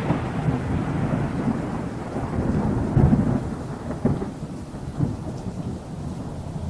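Deep, thunder-like rumble from an outro sound effect, slowly fading, with short swells about three, four and five seconds in.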